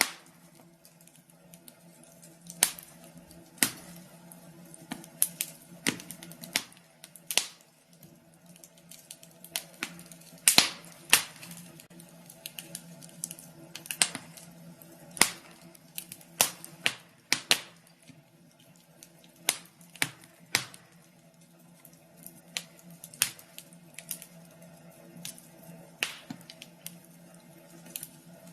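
Wood fire crackling in a fireplace: irregular sharp pops and snaps over a faint steady hum.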